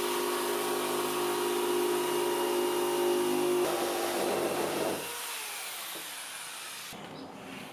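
Electric jigsaw running and cutting through a fibreboard sheet, a steady motor whine with the blade's rasp; it turns rougher a few seconds in and stops about five seconds in.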